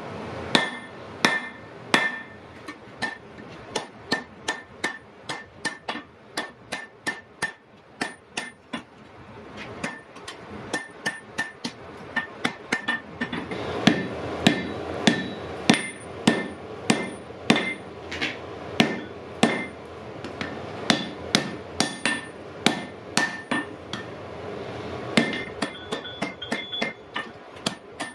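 Blacksmith's hand hammer striking hot iron on an anvil in a steady series, about one to two blows a second, each blow with a metallic ring.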